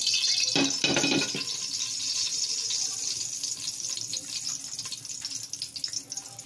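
Cooking oil sizzling and crackling as it heats in a metal pot, the hiss fading steadily. A brief lower rumble comes about a second in.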